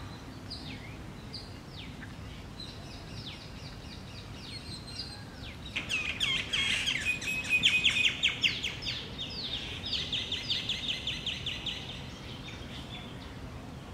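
Birds chirping: a few scattered chirps, then about 6 seconds in a rapid run of short, descending chirps that thins out after about 11 seconds.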